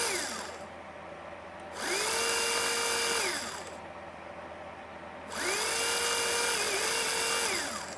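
Small electric motor of an AGV 575 model train driving unit whining as it runs on track power fed through a home-made test pickup bogie. The tail of one run winds down at the start, then the motor spins up, holds a steady pitch and winds down again twice, the second run longer.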